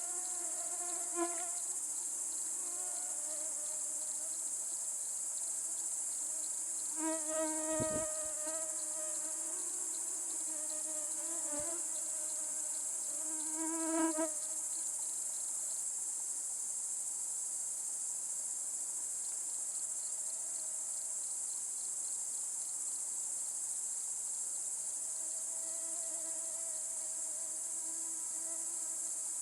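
Steady high-pitched chorus of insects such as crickets or grasshoppers. Over it, a buzzing insect flies close by several times, loudest about fourteen seconds in.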